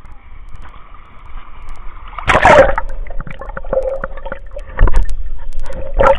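Seawater splashing and sloshing around a camera held in shallow surf, with a loud splash a little over two seconds in and two more surges near the end. Between them the sound turns muffled and gurgling while the camera is under the water.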